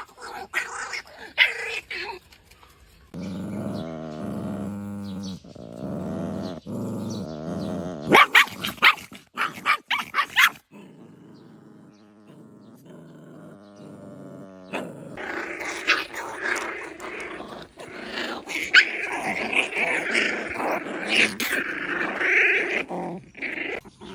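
A puppy growling and barking, with several sharp knocks partway through.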